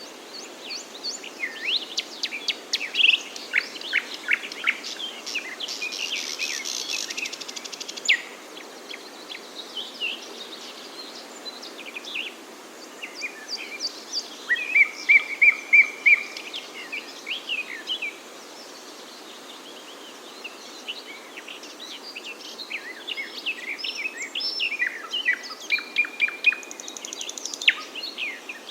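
Songbirds chirping and singing over a steady faint hiss. Quick runs of short, high chirps and a fast trill fill the first several seconds, a short run of the same repeated note follows in the middle, then a quieter spell, and a busy patch of chirping returns near the end.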